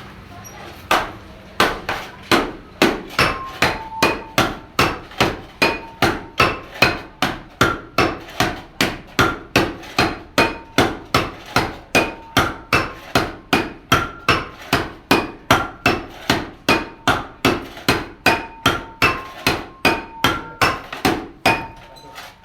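Hammer blows on the metal of a kempul gong being forged, struck steadily about two and a half times a second. Many blows leave a short ringing tone from the gong metal.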